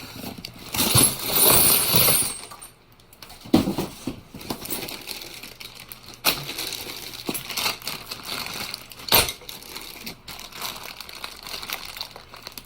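Steel sockets and hand tools clinking and knocking together as they are handled, with a burst of plastic packaging rustling about a second in and a few sharper knocks later on.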